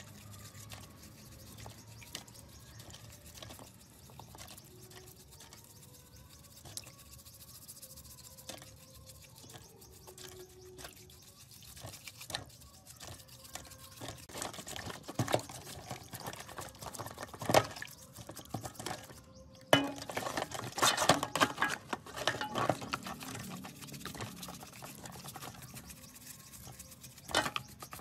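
A brush scrubbing plastic power-tool housings and a battery pack in a basin of soapy water, with splashing and dripping. The scrubbing grows busier and louder about two-thirds of the way through.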